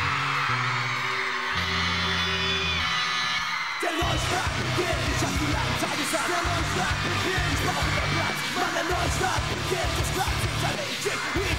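Live rock band playing an instrumental break over a crowd of fans screaming. For the first four seconds only held low notes sound under the screaming, then drums and full band come in together about four seconds in with a steady driving beat.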